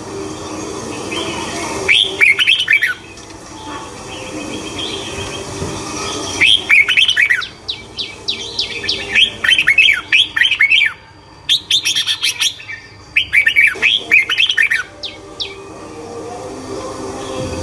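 Small birds chirping in bursts of rapid, high notes, about five bursts with short pauses between them.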